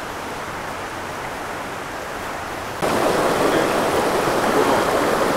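Steady rush of flowing water: a quieter stream at first, then about three seconds in a sudden step up to the louder, fuller rush of river rapids.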